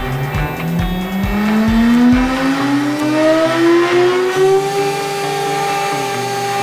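Axiom AR4 CNC router spindle motor spinning up: a whine that rises steadily in pitch for about five seconds, then holds steady once the spindle reaches full speed.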